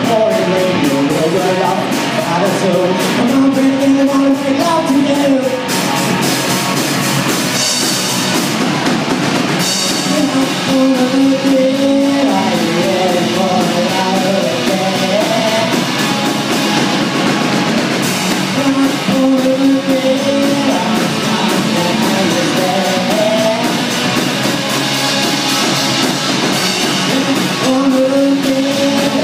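A live rock band playing electric guitars and drums. Phrases of held, wavering melody notes come and go over the top.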